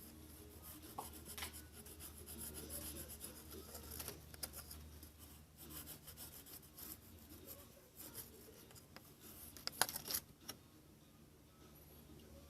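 Light hand work on parts: rubbing and scraping with scattered small clicks, and a cluster of sharper clicks about ten seconds in, over a faint steady low hum.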